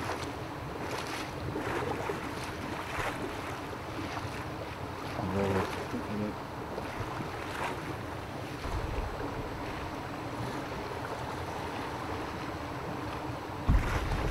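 Steady outdoor rushing noise of wind, with low gusts buffeting the microphone twice in the second half.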